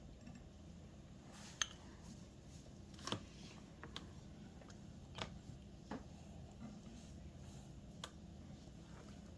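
Spoon and baby-food dishes clicking and tapping lightly, about six small clicks a second or so apart, the sharpest about one and a half seconds in, over a low room hum.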